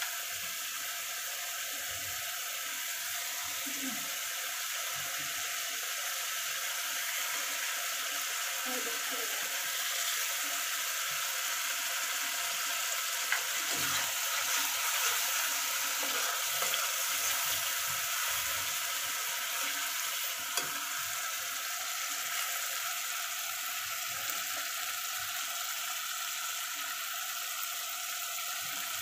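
Onion-and-spice masala sizzling steadily in hot oil in an iron karahi, being fried down until the oil separates. A few light clicks of a metal spatula come about halfway through and again later, as hilsa steaks are laid into the pan.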